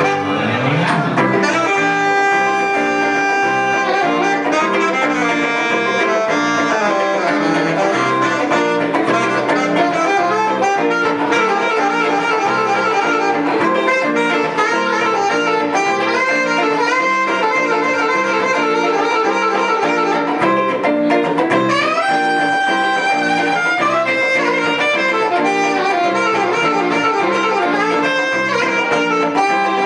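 Jazz played live by a saxophone and electric guitar duo: the saxophone carries the melody in long held notes and runs over the guitar's accompaniment, with an upward slide into a held note about twenty-one seconds in.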